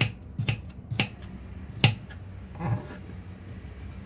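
Kitchen knife chopping red onion on a wooden cutting board: a few sharp knocks about half a second apart in the first two seconds, the last the loudest, followed by a softer sound.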